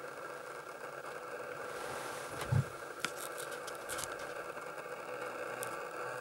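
A steady mechanical hum, with a few faint clicks and one dull thump about two and a half seconds in.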